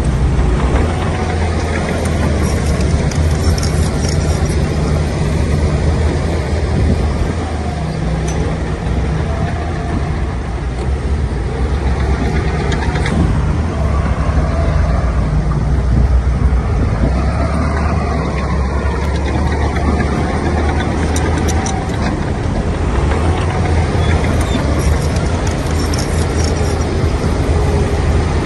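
Heavy diesel dump-truck engines running steadily with a continuous low drone.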